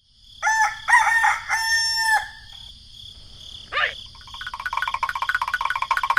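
A rooster crowing, a few short notes and then one longer held note. From about four seconds in comes a fast, even run of ticks.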